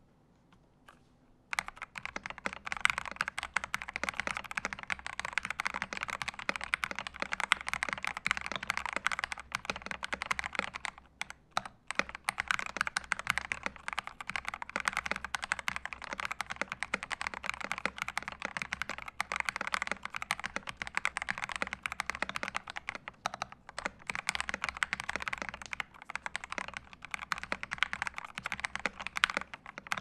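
Fast, continuous typing on a KBD67 Lite R4 custom mechanical keyboard with lubed Gateron KS-3 Milky Yellow linear switches, thick XDA PBT keycaps, and a case dampened with tape and tissue, giving the muted clack described as thocky and creamy. It starts about a second and a half in, with a brief break a little over ten seconds in.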